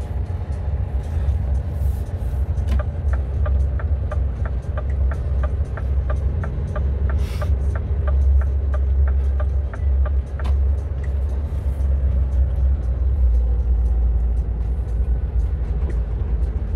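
Timber truck's diesel engine rumbling steadily, heard from inside the cab while the truck drives slowly. From about three seconds in to about ten seconds, the turn signal ticks evenly, about three times a second, then stops.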